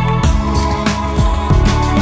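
Instrumental music with a steady beat over held chords.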